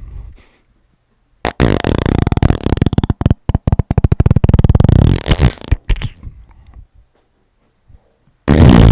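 Fart sound effects. A long, loud fart made of a fast flutter of pulses lasts about four seconds and trails off, then a second short, loud fart comes near the end.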